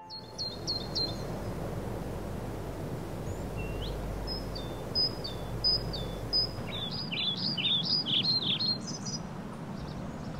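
Small birds chirping over a steady low outdoor background noise: a few quick notes at the start, then a run of repeated short chirps that grows busier between about seven and nine seconds in.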